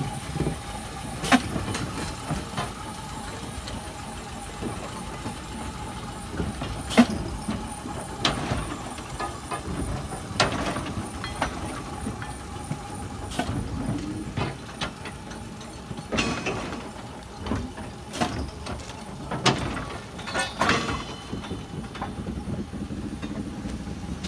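Irregular sharp metal clanks and knocks, about ten of them, from subway-car trucks and track gear being handled on the rails. Underneath is a steady mechanical hum and a faint high whine.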